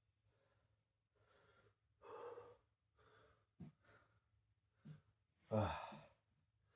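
A man breathing hard from exercise exertion: a series of panting breaths and gasps, ending with a loud voiced exhale about five and a half seconds in.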